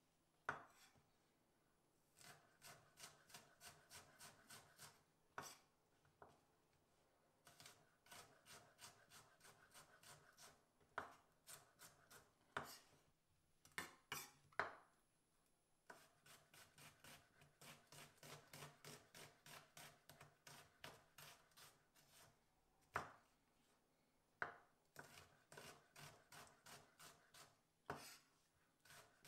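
Chef's knife slicing onion into thin strips on a wooden cutting board: runs of quick, even cuts, about four or five a second, broken by short pauses and a few louder single knocks of the blade on the board.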